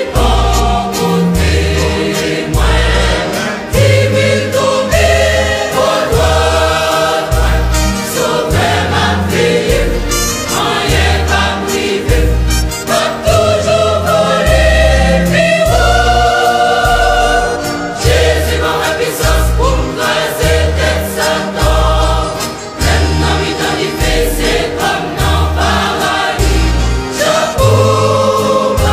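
Haitian Creole gospel song: a choir sings over a steady, repeating bass line.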